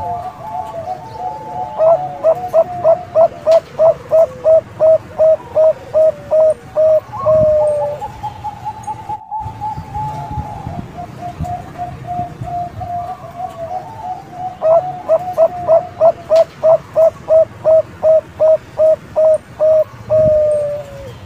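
Zebra dove of the Thai 'Bangkok' strain singing: two runs of rapid staccato coos, about three to four a second, each closing on a longer drawn-out note, with softer trilling coos between the runs.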